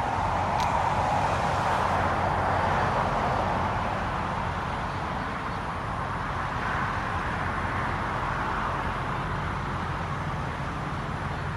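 Steady motor vehicle noise: a low engine hum with passing traffic swelling and fading over it, about a second in and again later.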